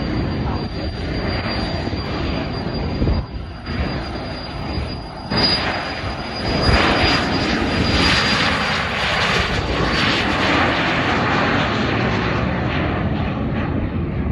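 Twin Williams FJ44 turbofans of a Cessna Citation CJ3 business jet at takeoff power during the takeoff roll: a steady high whine over a broad rushing jet noise. The noise grows louder about five to six seconds in as the jet accelerates past, and the whine fades after about ten seconds.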